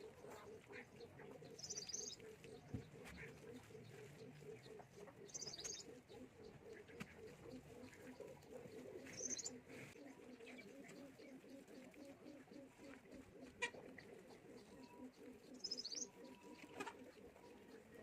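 Faint bird sounds: a steady, pulsing low cooing like doves, with a short high chirp every few seconds.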